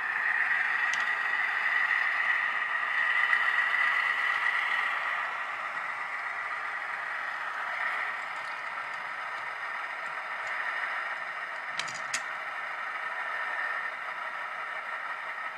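HO-scale Atlas C424 diesel locomotive with a Soundtraxx Tsunami sound decoder: recorded diesel engine sound from its small onboard speaker, mixed with the model's rolling noise, easing down about five seconds in. A couple of sharp clicks come about twelve seconds in as the locomotive closes on the boxcar.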